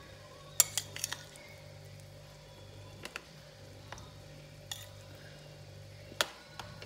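A metal spoon clinking against a bowl and plastic food containers as slices of rolled omelette are spooned in. A quick cluster of clicks comes about half a second in, then single clinks every second or two, the loudest near the end. A faint steady low hum runs underneath.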